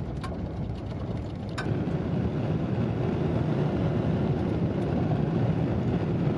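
A vehicle running: a steady low rumble that gets louder after a sharp click about a second and a half in.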